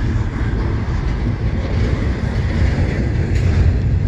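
Double-stack container well cars of a CSX intermodal freight train rolling slowly past, a steady low rumble of wheels on rail.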